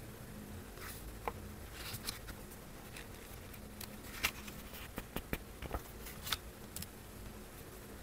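Small clicks and taps of hands handling a small hardcover book and picking up a gel pen, with a run of sharp clicks about five to six and a half seconds in.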